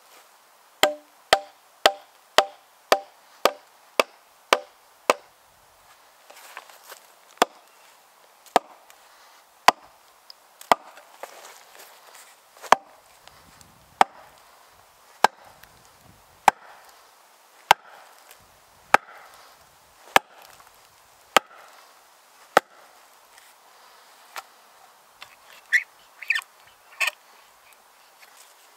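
Heavy green-oak maul striking the poll of an axe head that is driven into the split of an ash log as a wedge. First comes a quick run of about nine ringing blows, about two a second, then slower single heavy blows a little over a second apart. A few sharper, brighter knocks come near the end.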